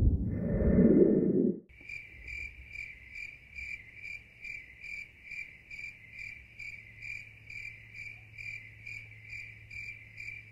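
A short, louder low-pitched sound for about the first second and a half, then steady cricket chirping, about two and a half chirps a second over a faint hum, that starts and stops abruptly like a sound effect laid over the video.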